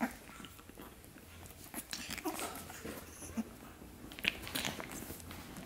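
Shih tzu puppies chewing on toys and tussling: scattered soft clicks and scuffles of teeth and paws.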